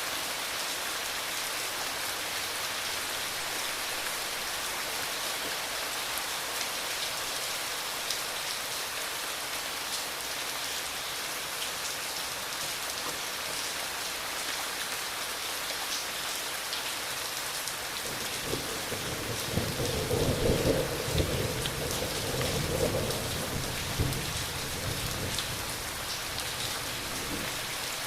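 Heavy rain falling steadily, with a rumble of thunder that builds about two-thirds of the way through, peaks, and dies away near the end.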